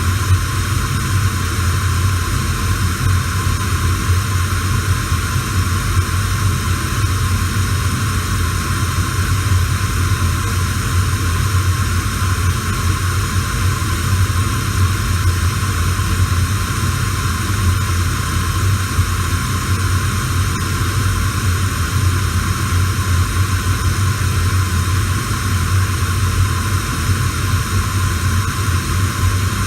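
Radio static: a steady hiss with a low hum underneath, with no voice or music coming through.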